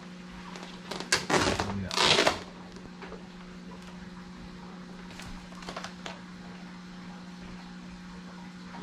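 A large sheet of vinyl wrap film rustling and crinkling as it is handled against a boat hull, in two loud bursts about one and two seconds in, then a few faint clicks. A steady low hum runs underneath.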